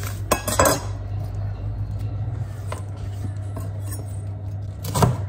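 Chef's knife cutting Brussels sprouts on a wooden chopping board: two or three sharp chops in the first second, a faint one midway and a louder one near the end, over a steady low hum.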